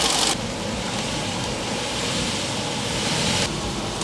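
Rebuilt Volvo B230FK turbocharged four-cylinder redblock engine idling steadily but rough, a sign that something is still out of adjustment somewhere.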